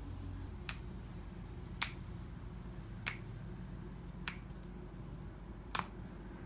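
Joints being popped by hand during a manual adjustment: five sharp cracks, one about every second and a quarter.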